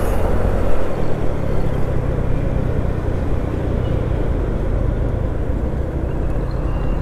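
Steady engine and road noise from a vehicle being driven along a highway.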